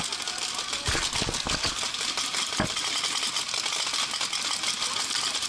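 Paintball markers firing across the field, a dense run of rapid pops and clicks, with a few closer knocks about a second in and again near the middle.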